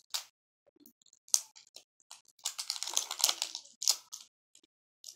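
Small plastic clicks and rustling from slime-kit containers and packets being handled while a colourant is added. The dense rustle comes about two and a half seconds in.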